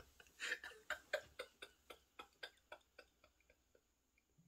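A man laughing quietly: a quick string of short breathy pulses, about four or five a second, that fade and die out about three seconds in.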